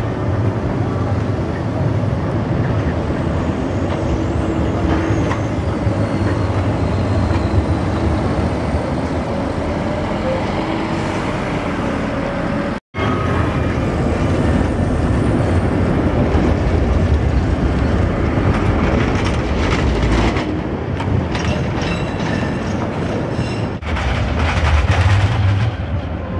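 Alstom TFS trams running on street track: a steady rumble of motors and wheels mixed with city traffic. It gets louder near the end as a tram comes in to the platform.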